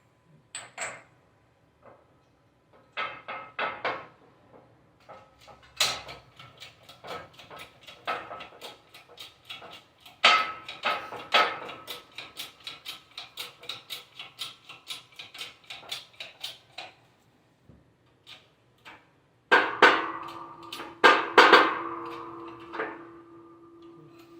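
Hammer striking metal, driving a part onto a Chevy 10-bolt posi unit: a few scattered knocks, then a long run of quick taps, about three or four a second. Near the end come several heavier blows that leave the metal ringing.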